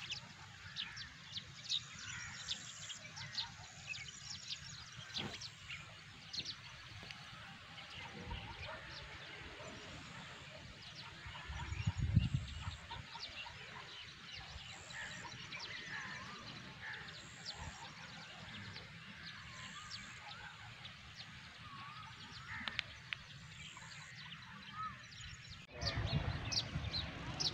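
Small birds chirping over an open-field background, many short chirps throughout. A brief low bump about twelve seconds in, and near the end the background turns abruptly louder.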